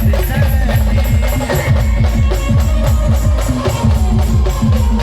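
A band playing loud live music: fast, heavy drumbeats under a sustained melody line.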